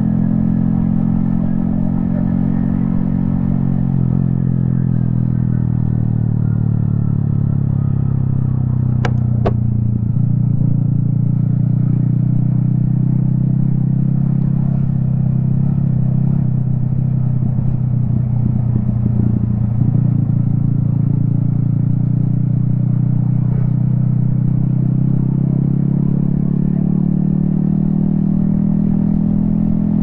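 Yamaha XSR155's single-cylinder engine running steadily at an even cruising speed, heard from the rider's helmet. Two sharp clicks come about nine seconds in.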